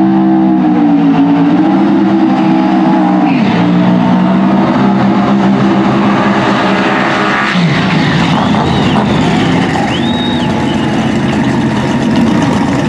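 Drag-race car engines running loud at high revs, with the pitch dropping about three and a half seconds in and again around seven and a half seconds.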